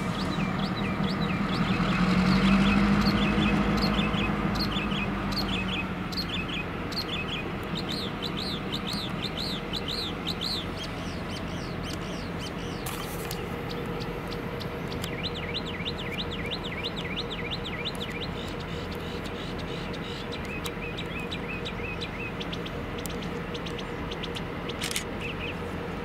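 Norfolk Southern diesel locomotive engine running as the light engine moves along the track, loudest a few seconds in and then fading to a low steady hum. Over it, birds chirp in quick repeated series.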